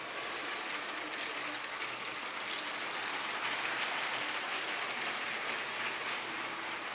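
Battery-powered Lego train running along plastic track: a steady rushing whir of the small electric motor and plastic wheels with faint light clicking, louder about halfway through as the train passes close.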